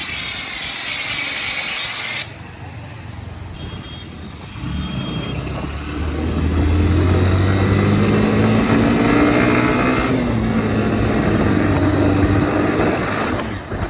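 A road vehicle's engine running and pulling away, rising in pitch and growing louder from about five seconds in. A loud hiss of wind or road noise fills the first two seconds.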